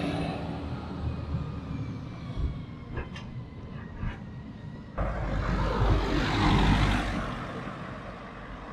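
A garbage truck's engine running as it passes close by and then works further up the road, with two short sharp sounds about three and four seconds in. After an abrupt cut, a small van drives past, rising and fading away.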